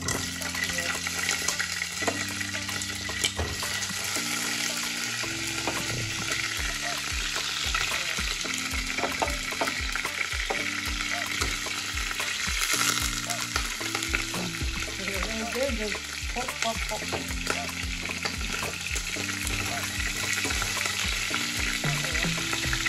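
Boiled chicken pieces frying in hot oil in a pan, a steady sizzle, over background music with a stepping bass line and an even beat.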